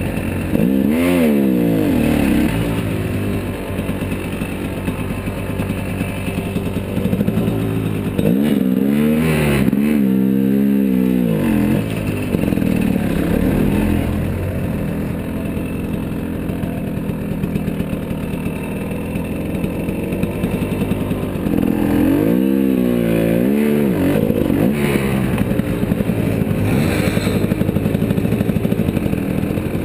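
Dirt bike engine running while riding a rocky trail, its revs climbing and dropping in several bursts between stretches of steadier running.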